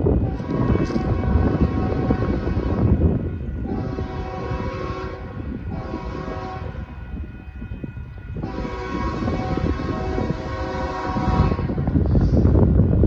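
Union Pacific freight locomotive horn, a chord of several steady notes, sounding the long, long, short, long grade-crossing signal as the train approaches. A low rumble runs underneath.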